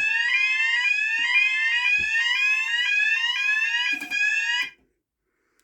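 Fire alarm sounder sounding a repeating rising sweep tone, about two sweeps a second, set off by an ionization smoke detector that has just caught smoke from a struck match. It cuts off suddenly near the end, and a couple of short clicks can be heard.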